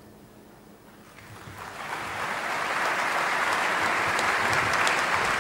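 A large audience applauding. The clapping swells in over about a second, shortly after a quiet pause, then holds steady.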